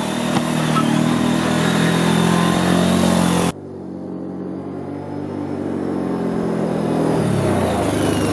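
Can-Am 450 ATV engine running while the quad is ridden along a trail, with a rushing hiss over it. About three and a half seconds in, the sound cuts off abruptly to a quieter engine, which then builds steadily louder.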